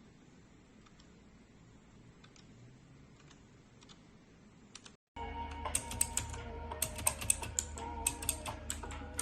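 Typing on a mechanical keyboard with Outemu switches: a few faint, sparse keystrokes at first, then after a short break about five seconds in, rapid, louder key clicks over background music.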